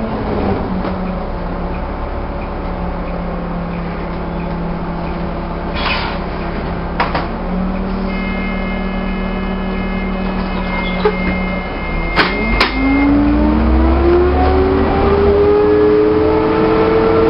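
Alexander-bodied Volvo double-decker bus engine heard from on board. It settles to a steady low running note for about ten seconds, with a few sharp clicks and a high steady tone lasting several seconds. It then rises steeply in pitch as the bus pulls away and accelerates.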